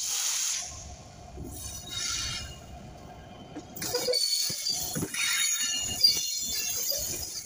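Diesel locomotive and passenger train approaching, then passing close from about four seconds in, with a rapid run of clanks from the wheels going over the rail joints.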